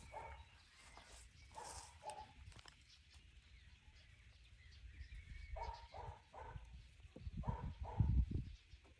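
A dog barking in short barks, in scattered groups, with a low rumble about eight seconds in.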